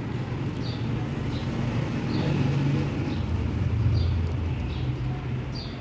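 Background traffic rumble, swelling in the middle as if a vehicle passes close, with small birds chirping faintly at short intervals.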